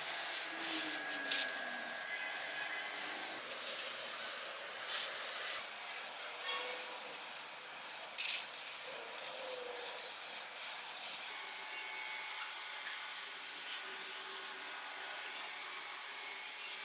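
Sanding by hand on a miniature model car part: irregular rubbing strokes with a few small clicks.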